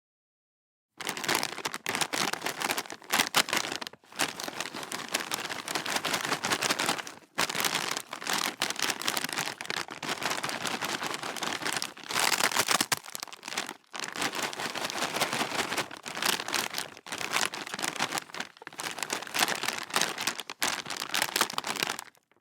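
Potato chip bag being crinkled and crumpled by hand, a dense crackling that goes on in several long stretches with brief pauses between them.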